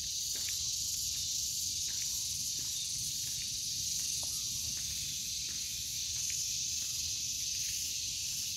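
Steady high-pitched insect chorus hissing without a break, over a low rumble, with faint scattered ticks of footsteps on the path.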